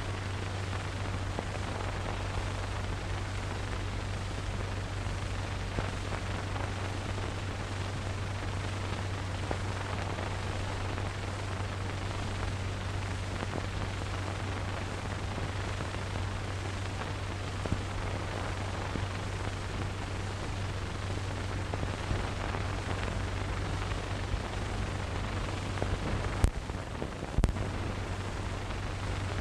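Steady hiss and low hum of an old optical film soundtrack with no dialogue or music, and two sharp clicks near the end.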